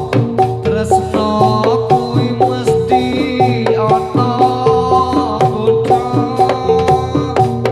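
Javanese gamelan music accompanying jathilan dancing: hand drum beats under quick repeating metallophone notes, in a steady rhythm.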